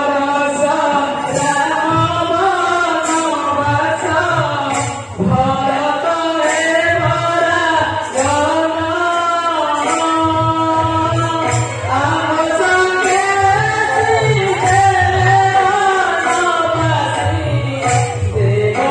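Indian devotional-style singing: one voice holding long, wavering, gliding notes over percussion accompaniment that keeps a steady beat.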